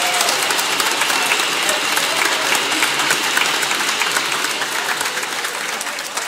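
Audience applauding, a dense clatter of many hands that slowly dies down toward the end.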